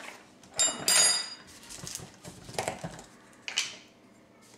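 Two bright, ringing clinks of glass or dishware about half a second and a second in, then a few lighter knocks as containers are handled on a kitchen counter.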